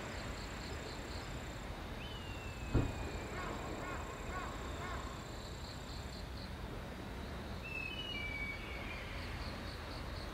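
Early-morning seaside ambience: a steady wash of surf and wind, with insects, likely crickets, chirping in fast pulsed trills and a thin steady high tone. A bird gives a descending whistled call about 2 s in, a run of short chirps follows, and another descending call comes near 8 s. There is a single soft thump about 3 s in.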